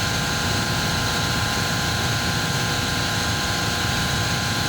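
Chiller compressor running steadily: an even machine drone with several steady high tones over it. It is still running and has not yet reached its automatic cut-off temperature.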